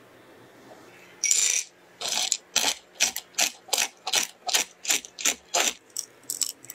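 Knife chopping roasted pistachios on a wooden cutting board: about a dozen sharp chopping strokes, roughly three a second, with a short noisy burst just before them and lighter clicks near the end.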